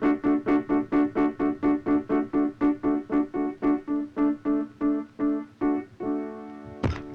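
Electronic keyboard or organ-like note pulsing in an even, rapid rhythm, about four times a second. Near the end the note is held steadily, then a single sharp hit sounds.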